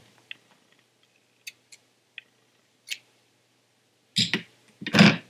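Handling sounds on a tabletop: a few faint ticks, then two louder brief rustling knocks about four and five seconds in.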